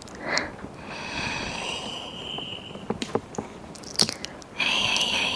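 Wet mouth sounds of ear licking right at a 3Dio binaural microphone's ears: tongue and lip smacks with sharp wet clicks about half a second in and around four seconds in, and two stretches of a steady high squeak.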